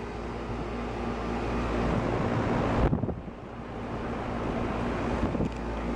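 A 1995 Tempstar 3-ton central air conditioner condenser running steadily: the Copeland reciprocating compressor hums under the rush of air from the condenser fan. The level dips briefly about halfway through.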